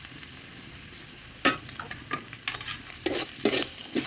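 Sliced onions and ground spices sizzling in hot oil in a metal kadai. A metal spatula starts scraping and stirring them about one and a half seconds in, with the strokes coming faster near the end.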